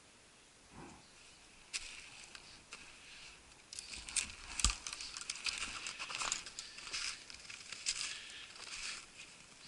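Footsteps crunching in snow, with twigs and clothing brushing and rustling as a person pushes through snowy undergrowth; the rustling starts a couple of seconds in, grows busier, and a single heavier thump comes about halfway through.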